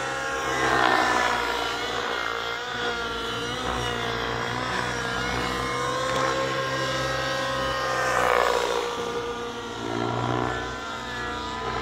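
Two 700-class nitro radio-controlled helicopters, a Gaui NX7 and an Align T-Rex 700 Nitro, flying together: their glow engines and rotors give a continuous whine that rises and falls in pitch as they manoeuvre. It swells louder about a second in and again around eight seconds as they pass close.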